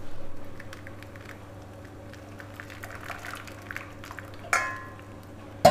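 Thick peach pulp pouring from a steel saucepan into a stainless-steel mesh strainer over a steel bowl, over a steady low hum. Two ringing clinks of steel on steel, one about four and a half seconds in and a sharper, louder one near the end.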